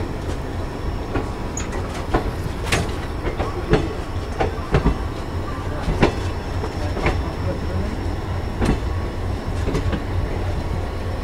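Passenger train's ICF coach rolling slowly out of a station, heard at the open doorway: a steady low rumble of wheels on rail, with sharp wheel clicks and clunks over the rail joints about once a second.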